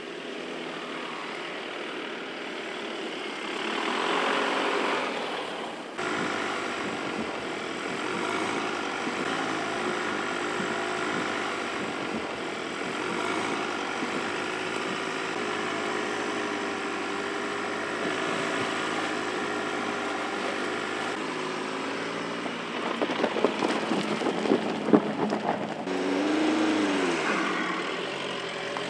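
Volkswagen Passat Alltrack's engine running at low speed as the car creeps over a rough off-road track, its note wavering gently with the throttle. Near the end, tyres crackle over a dirt track, and the engine note rises and falls as the car drives past.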